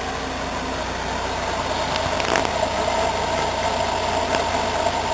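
Dodge Grand Caravan 3.8-litre V6 running steadily at idle, with a brief click about two seconds in.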